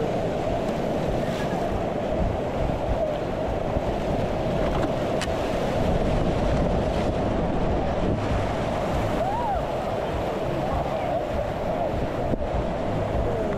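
Steady rush of whitewater rapids, heard from a canoe running through standing waves.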